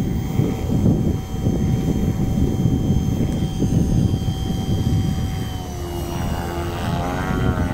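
500-size electric RC helicopter running, its motor and rotor giving a steady high whine that begins to waver and bend in pitch about two-thirds of the way through as it lifts off and hovers. Wind rumbles on the microphone underneath.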